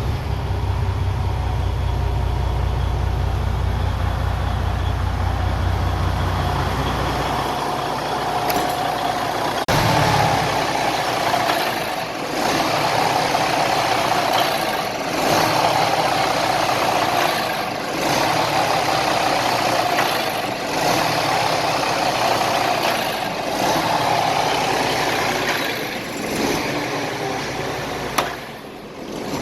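Heavy-duty Detroit Diesel truck engine running just after starting, on a truck with a low fuel pump pressure fault. A strong low rumble for about the first seven seconds then fades, leaving a mid-pitched hum that swells and dips every couple of seconds.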